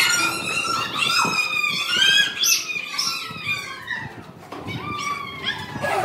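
Children's high-pitched yelling and squealing, several voices overlapping, inside a stone tunnel.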